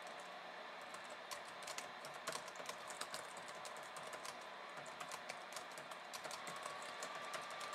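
Keys of a compact 1ByOne Bluetooth keyboard being typed on, a run of faint, irregular clicks several a second.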